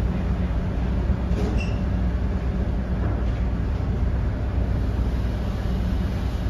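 Car ferry's diesel engines running with a steady low drone while docking, with a brief high chirp about a second and a half in.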